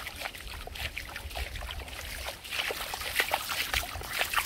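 Shallow, sandy stream water trickling, with irregular small splashes and sloshes.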